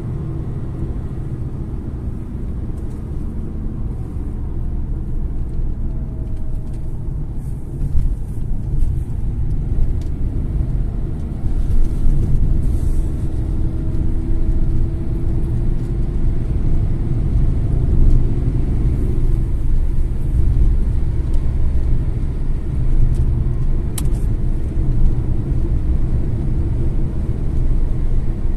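Inside a moving car on the highway: steady low road and engine rumble, a little louder from about ten seconds in.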